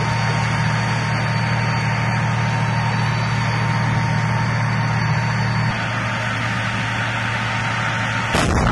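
Tank engine running with a steady low drone that eases off about two-thirds of the way through, then a sudden loud blast near the end.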